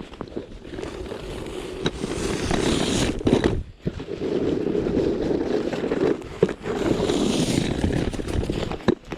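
Snow shovel scraping along pavement in two long pushes, with a short break between them and some knocks.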